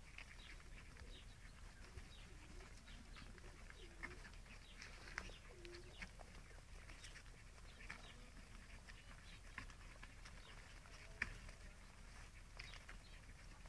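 Near silence, with faint scattered ticks and a few soft, short low calls between about two and six seconds in.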